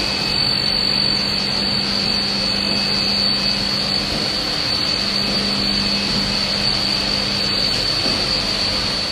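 Air bubble film and foam sheet laminating machine running: a steady, loud mechanical hiss with a constant high whine and a low hum.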